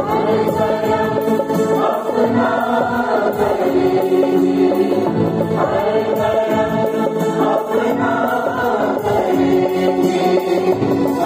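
A mixed choir of men and women singing a song together in long held phrases, accompanied by a harmonium.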